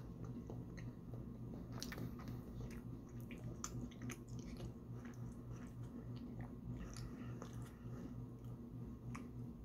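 Close-up mouth sounds of someone chewing a bite of soft taro fudge: irregular small wet clicks and smacks, over a steady low background hum.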